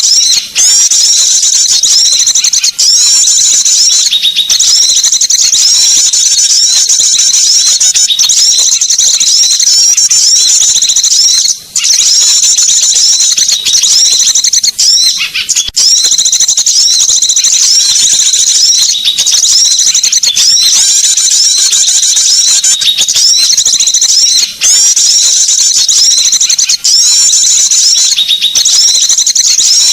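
Dense, unbroken high-pitched chirping and twittering of many small songbirds, a bird-lure recording meant to draw small birds in. It pauses only for a moment a few times, most clearly a little under halfway through.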